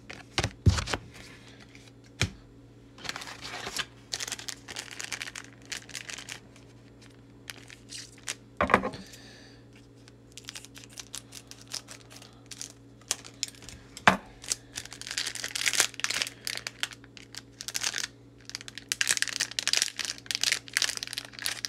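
Foil booster-pack wrapper crinkling and tearing as it is opened, with a few sharp clicks from handling. The crinkling comes in spells and is densest near the end.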